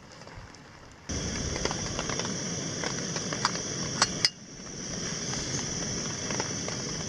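Faint rain for about a second, then the steady hiss of a canister backpacking stove burner running under an aluminum pot, with light crackling ticks. About four seconds in come two sharp metallic clicks, the hiss briefly drops and then builds back.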